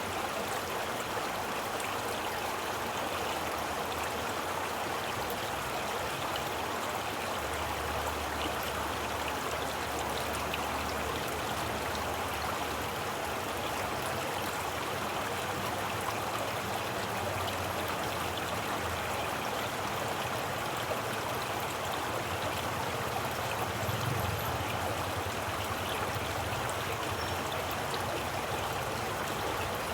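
Stream water flowing steadily, an even rushing and babbling without break.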